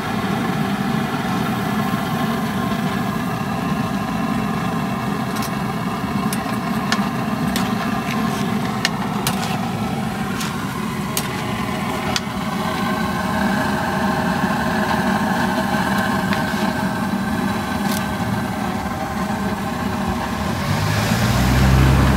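A motor vehicle engine idling steadily. Light clicks and taps are scattered through the middle, and a low rumble comes just before the end.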